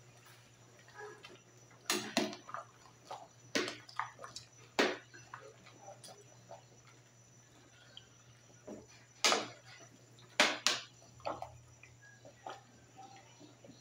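Metal ladle stirring soup in a stainless steel pot: irregular sharp clinks of the ladle against the pot, clustered about two to five seconds in and again around nine to eleven seconds, with soft sloshing of broth between them. A low steady hum runs underneath.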